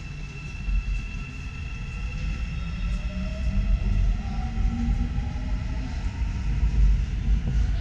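Subway train running through the station: a low rumble that grows louder, with a faint electric motor whine rising in pitch about halfway through.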